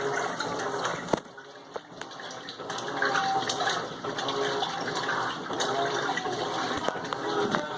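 Electrolux LTM15 top-loading washing machine with water rushing and sloshing in the tub. There is a sharp click about a second in, a brief lull, and then the water sound returns.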